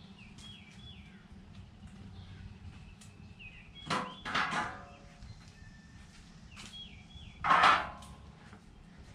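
Small birds chirping over a low steady background, with two short, louder harsh sounds about four seconds in and near the end.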